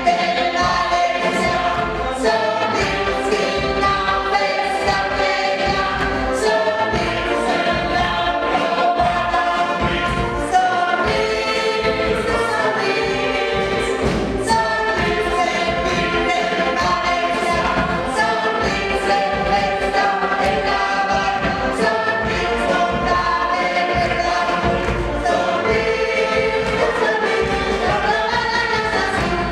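A group of voices singing a song in unison over a backing track with a steady beat.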